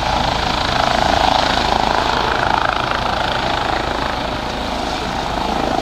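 Light helicopter with a ducted fenestron tail rotor lifting off and climbing away, its turbine engines and rotors running at take-off power in a steady loud sound, a little louder a second or two in.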